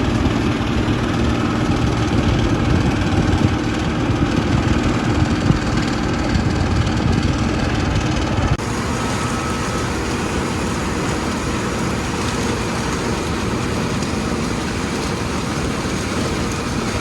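Heavy farm machinery running steadily during the corn harvest. The sound changes abruptly about halfway through.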